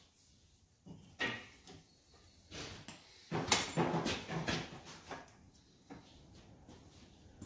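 Manual lever-type tubing bender being worked while bending steel exhaust pipe: a series of short metal creaks and clunks, the loudest group about three and a half to four and a half seconds in.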